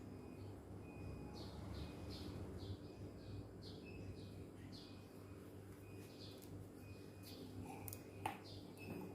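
Small birds chirping in quick, repeated short high calls over a steady low hum, with one sharp click near the end.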